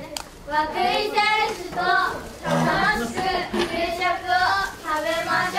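Children's voices in short, high-pitched phrases, sung or chanted.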